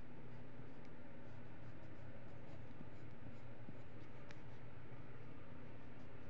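Pencil scratching on paper in short, faint strokes as a drawing is sketched, over a steady low hum.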